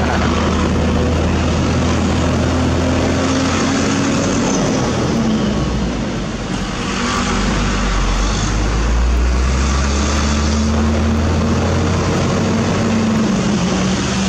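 Heavy diesel engine running, its pitch rising and falling a few times as the throttle is opened and eased off, with a deep low rumble throughout.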